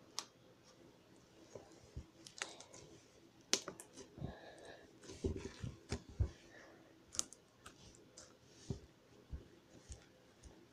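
Slime being stretched, pressed and folded by hand on a tabletop: scattered small clicks, pops and squelches, with a cluster of low thuds in the middle.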